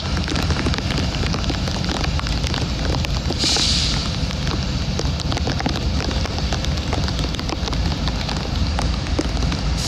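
Steady rain, with many drops crackling close to the microphone over a low rumble. A brief hiss comes in about three and a half seconds in.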